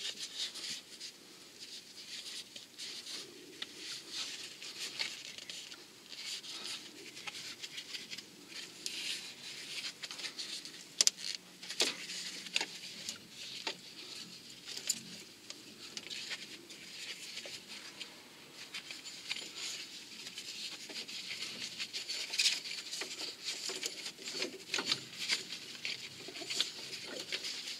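Ribbed auxiliary drive belt being worked off the engine's pulleys by gloved hands: soft rubbing and rustling of rubber and glove, with scattered small clicks and a few sharper ticks.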